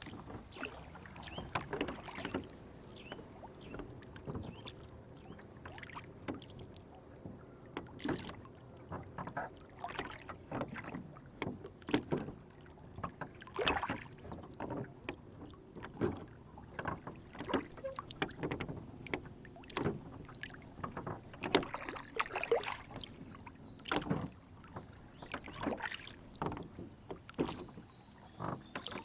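Lake water lapping and splashing against a rowboat as it rocks, with many irregular small knocks and splashes.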